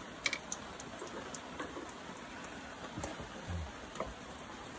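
Scattered light metallic clicks and taps as an Allen key is fitted and turned on the fittings of a vintage Isomoto motorcycle engine, over a steady faint hiss.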